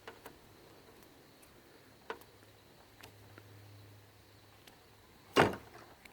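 Pliers working on thin cat5 conductors: a few light clicks and taps of the tool and wire, then one much louder sharp snap about five seconds in as the jaws close or cut through the insulation.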